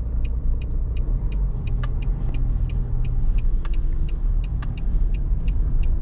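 Car driving, with steady low road and engine rumble inside the cabin and a regular light ticking about three times a second.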